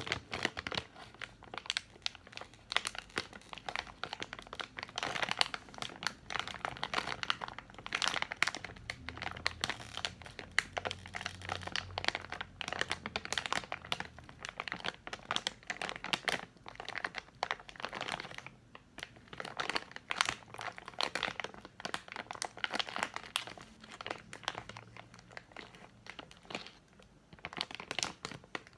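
Candy packaging crinkled and crumpled by hand close to the microphone, in irregular crackling handfuls with brief pauses.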